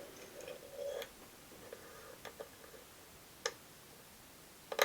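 Faint, scattered clicks and taps of a small bent-metal wire trigger being handled and bent by hand, with a louder double click near the end.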